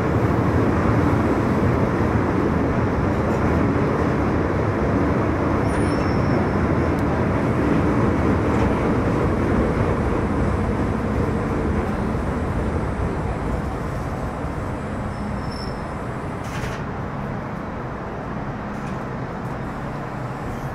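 Metro Cammell M-Train electric multiple unit heard from aboard: steady wheel and running noise that gradually grows quieter. A brief click comes about three-quarters of the way through.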